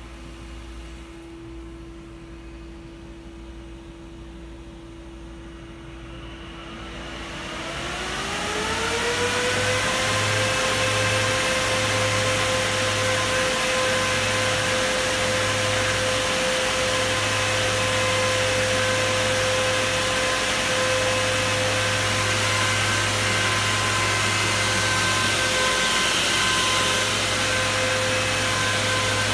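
Three Nidec W12E12BS11B5-57 6500 RPM server fans on a water-cooling radiator spinning up: a low steady hum gives way, about seven seconds in, to a rising whine and a rush of air that levels off into a steady high whine over strong airflow noise.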